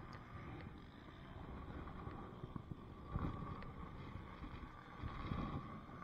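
Low wind rumble and handling noise on the microphone, with a couple of dull thumps about three and five seconds in.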